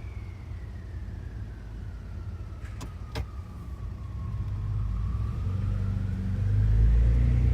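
Ford F-150 3.5L EcoBoost twin-turbo V6 with muffler and resonator deleted: a turbo whistle falls in pitch as the revs drop, then rises again as the throttle opens and the exhaust rumble grows louder near the end. Two sharp clicks about three seconds in.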